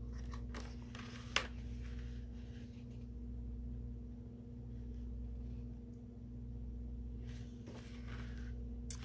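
Quiet room tone with a steady low hum, broken by a sharp soft click about a second and a half in and a faint paper rustle near the end as hands hold an open hardcover book.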